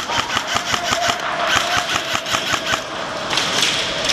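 Airsoft electric rifle firing a rapid string of shots, about five a second, each with a sharp crack over the whine of its gearbox motor; the firing stops about three seconds in.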